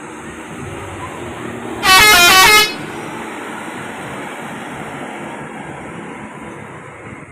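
A telolet horn on a passing heavy vehicle plays a quick run of short, stepping musical notes lasting under a second, about two seconds in. Steady traffic noise runs underneath and fades near the end.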